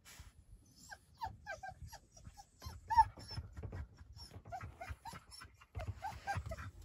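French bulldog whimpering in a run of short, high whines, some falling in pitch, most of them bunched in the second half, over a faint low rumble.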